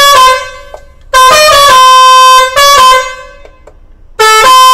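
Truck's musical pressure horn, the selectable-tune "numbering" type, playing a melody of loud held notes that step from pitch to pitch, in phrases: one ending just after the start, a long phrase from about one second, a short note near three seconds, and another beginning just after four seconds.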